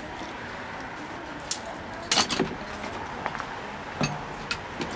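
A few light knocks and clinks over a steady background noise, with a small cluster of them about two seconds in.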